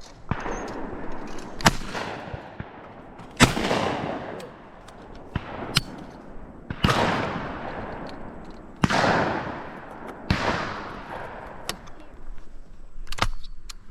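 A series of shotgun shots fired at clay targets, spaced a second or more apart, the loudest followed by long echoing tails.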